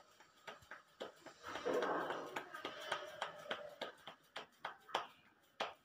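Soft, irregular pats and taps of wet fingers pressing a ball of maize-flour dough flat by hand, a few a second, with a brief rustle about two seconds in.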